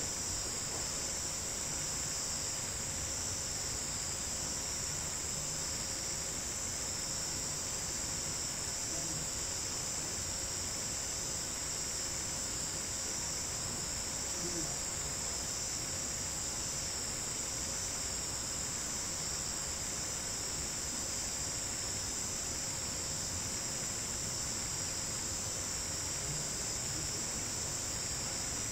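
A steady chorus of night insects, a high-pitched trilling that carries on without a break, with a slight pulsing.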